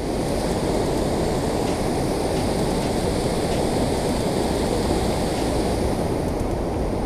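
Steady, deep rush of water pouring over a concrete dam spillway and churning into white water below.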